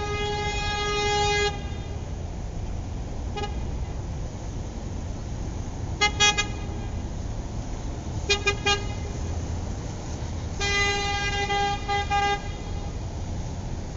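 Car horn honking: a long blast that stops about a second and a half in, a single short toot, two quick runs of three short beeps, then another long blast of nearly two seconds, over a steady low rumble.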